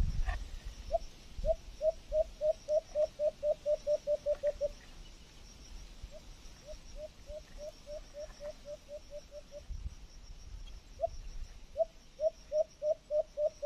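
An animal calling in three runs of short, sharp, evenly repeated notes, about four a second, each run lasting a few seconds with brief pauses between.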